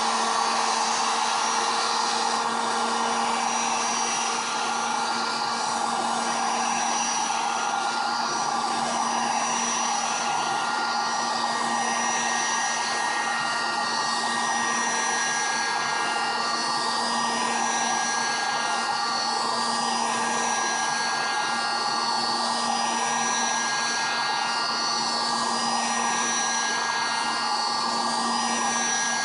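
Heat gun blowing steadily: a constant rush of air with a steady motor whine that does not change. It is heating the glue that holds a metal bracket to a GPS touchscreen so the bracket can be lifted off.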